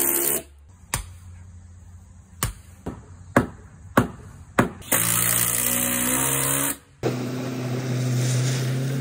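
Cordless impact driver running in short bursts, driving screws into wooden form boards, with several sharp knocks between the bursts. From about seven seconds in, a steady low mechanical hum.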